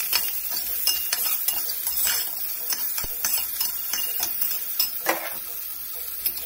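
Metal spatula stirring and tossing sliced okra in a wide steel pan: irregular clinks and scrapes of metal on metal, with one harder knock about halfway through. Hot oil sizzles under the stirring.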